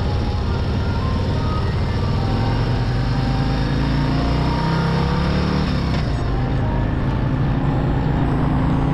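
Harley-Davidson V-twin motorcycle engine running under way, with a steady rush of road and wind noise; the engine note climbs about halfway through as the bike speeds up.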